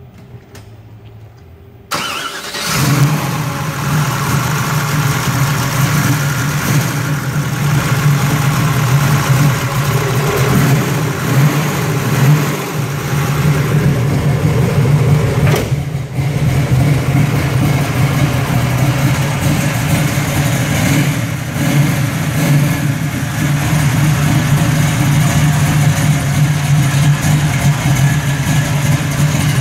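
A 1968 Chevrolet Camaro SS's carbureted V8 fires up about two seconds in, then runs at a steady, loud idle.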